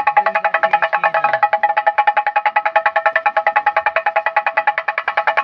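A damru (dugdugi), the small two-headed pellet drum of a monkey showman, rattled in a fast, even roll of about twelve strikes a second with a ringing, pitched drum tone.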